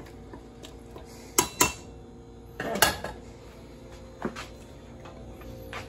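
A ladle clinking against a stainless steel stock pot of soup as it is stirred: two quick clinks about a second and a half in, a louder one near the middle, and a lighter one later.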